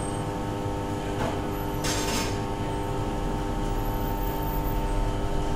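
Steady mechanical hum over a low rumble, with a short hiss about two seconds in.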